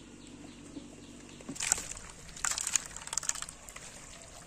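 Wet mud squelching and crackling in an irregular run of sharp clicks as someone wades through the drained pond bed. Before it, a faint steady hum runs for about the first second and a half.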